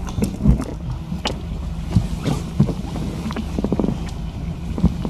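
A motor's steady low hum with scattered short knocks and clicks over it.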